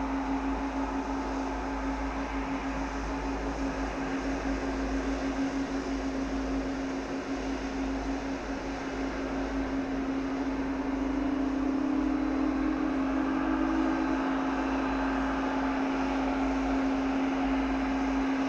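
Boeing 777-300 jet engines running at taxi idle: a steady drone with a low hum at one pitch. It grows a little louder, with a second tone joining, about two-thirds of the way in as the airliner turns.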